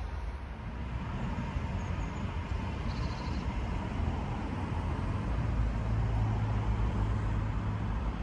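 Steady low rumble of vehicle noise, with a low hum that grows a little stronger past the middle.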